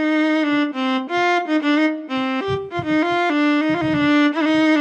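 Physically modelled solo viola (SWAM Solo Strings v3) playing a short bowed melodic phrase, one note at a time in its middle range. A few quick passing notes lead to a long held note near the end.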